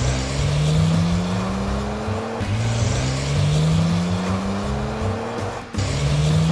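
Race-car engine sound effect revving up through the gears: a rising engine tone that climbs, drops back about two and a half seconds in and climbs again, with a short break near the end. Background music plays underneath.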